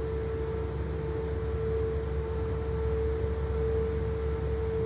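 A steady machine hum: one held mid-pitched tone over a low rumble, unchanging throughout.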